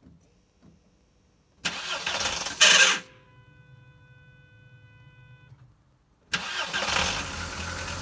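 A car is started twice. About a second and a half in comes a short burst of starter cranking that stops without the engine catching, the "tiny hiccup", followed by a steady electronic tone for a couple of seconds. About six seconds in the starter cranks again and the engine catches and keeps running.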